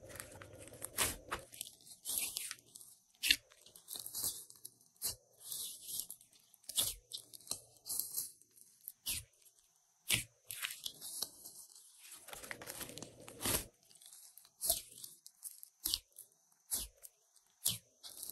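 Glossy slime being worked by hand: irregular sticky crackles and sharp pops, with a couple of longer, denser squelching stretches.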